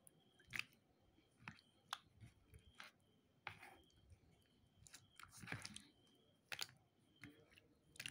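Fingers pressing and poking glossy slime, making quiet sticky clicks and pops about once a second, with longer wet squelches about three and a half and five and a half seconds in.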